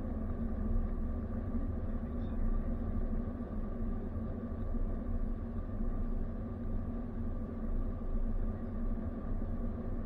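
A car driving at a steady cruising speed on a paved road, heard from inside the cabin: an even, low engine and tyre rumble with a constant hum.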